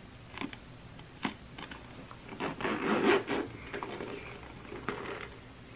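The metal zipper of a Louis Vuitton handbag being pulled open. It makes a drawn-out rasp about two and a half seconds in and a shorter one near the end, with small clicks from the bag being handled.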